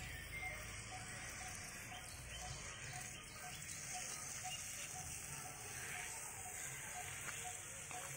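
Outdoor ambience: a steady high-pitched insect drone, with a bird repeating a short, low note about twice a second.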